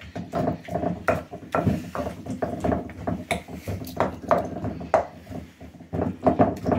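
Wooden pestle pounding and mashing a thick wet paste in a bowl by hand, a steady run of dull thuds about three a second.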